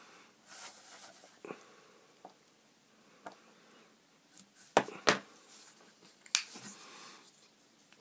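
Sharp clicks from a Spyderco Dragonfly 2 lockback folding knife as its freshly reassembled blade is worked to test the action: two clicks close together past the middle, then a third about a second later. Before them, faint scraping and rustling as a small Torx driver tightens the lock pivot screw.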